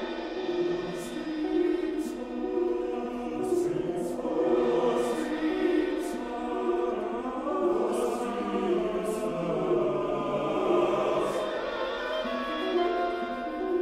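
Choral music: a choir's tenors and basses sing a slow line over repeating harp arpeggios.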